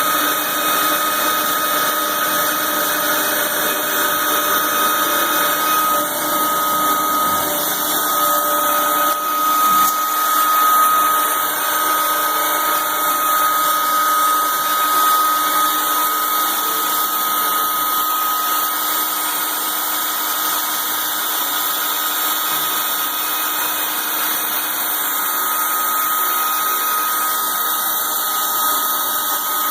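CNC router spindle running steadily with a high whine while it resurfaces the spoilboard.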